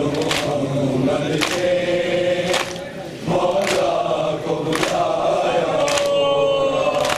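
A group of mourners chanting a nauha together while beating their chests in unison (matam). The chest strikes land as one sharp slap a little over a second apart, with a short break in the chanting about three seconds in.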